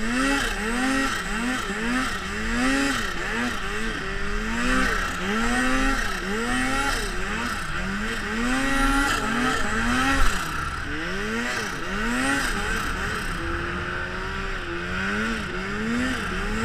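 Turbocharged Arctic Cat ProClimb M800 snowmobile's two-stroke twin engine, its revs rising and falling over and over as the throttle is worked, over a steady rushing noise. A brief thump about ten seconds in.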